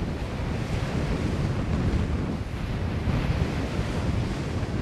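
Wind buffeting the microphone, over the distant roar of a Boeing 767-300's jet engines as it lands.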